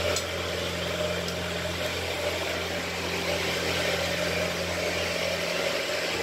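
Steady low mechanical drone with city street noise.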